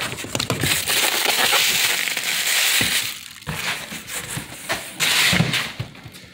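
Cardboard boxes and plastic packaging being handled and shifted about: dense rustling and scraping with many small knocks. It dies down about three seconds in, then comes back in a short burst around five seconds in.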